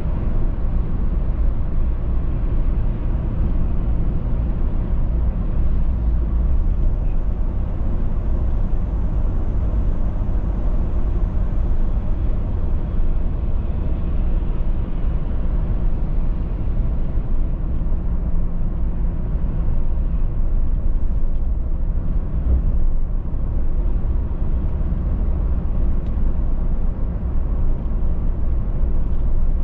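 Steady road noise of a car cruising at speed, heard from inside the cabin: a low tyre and engine rumble with no sudden events.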